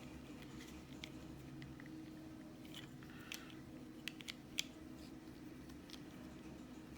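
Faint clicks and scrapes of a plastic action-camera clip and helmet mount being handled and fitted together, several sharp clicks bunched in the middle, over a low steady hum.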